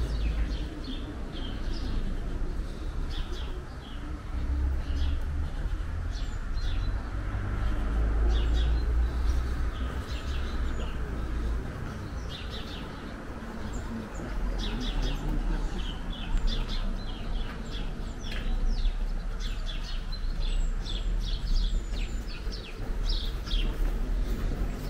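Small birds chirping and twittering in quick, separate calls throughout, over a low, uneven rumble.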